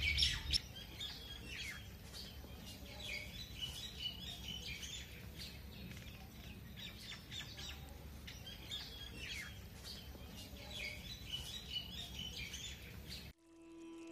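Songbirds chirping and twittering in many short, repeated calls over a faint background. Just before the end the sound cuts off abruptly to a low, held musical tone.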